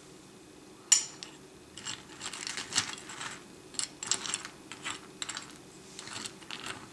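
A metal spoon clinks sharply once against a glass cereal bowl about a second in. It then scrapes and clicks around the bowl in an irregular run, scooping oat cereal squares in milk.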